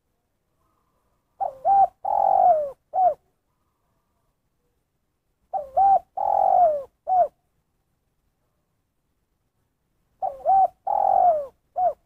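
Spotted dove cooing its phrase three times, about four seconds apart: two short notes, a long falling coo and one short closing note, the single-ending 'kuk satu' form of the call.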